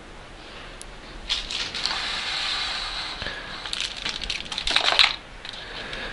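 Crinkling and rustling of plastic packaging being handled, ending in a quick run of clicks and taps about four to five seconds in, the loudest point.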